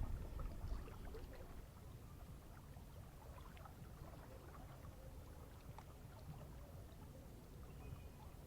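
Faint low rumble of wind and water, with scattered light clicks and ticks.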